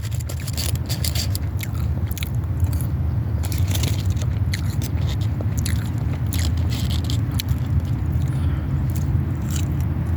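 Close-miked eating: chewing and crunching with many short, sharp mouth clicks, over a steady low hum.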